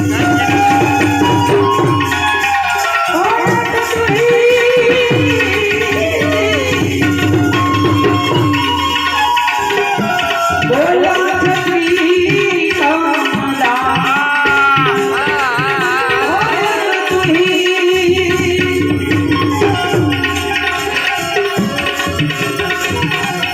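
Instrumental interlude of a Gujarati devotional bhajan: tabla playing a steady beat under a melody line with bending, ornamented notes.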